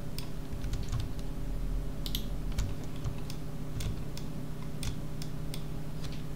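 Computer keyboard keys and mouse buttons clicking irregularly, one or two clicks a second, over a steady low hum.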